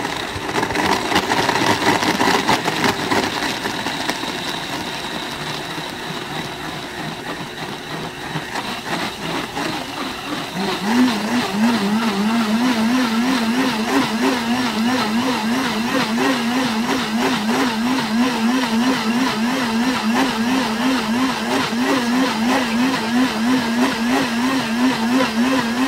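Blendtec blender running its 'whole juice' program on a green smoothie of fruit, spinach and ice, its motor spinning loud and steady. About ten seconds in, the sound changes to a steady hum that wobbles up and down several times a second.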